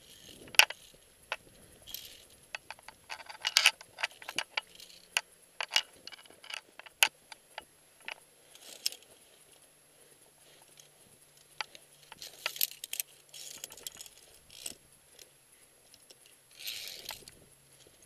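Metal climbing gear clinking and jangling against rock and a steel safety cable, with gloves and boots scuffing on rock. It comes in irregular clusters of sharp clicks and short scrapes as the climber moves along the ridge.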